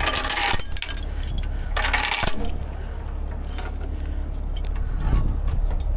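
Steel recovery chain rattling and clinking as it is handled, in bursts at the start and again about two seconds in, over the steady low rumble of a running truck engine.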